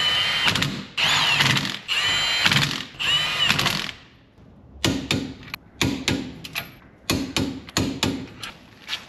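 Cordless impact wrench tightening the nuts that hold a 25 mm wheel spacer to a Mazda MX-5's wheel hub, run in four bursts of about a second each with a whining motor note. After a short pause comes a series of sharp clicks and knocks.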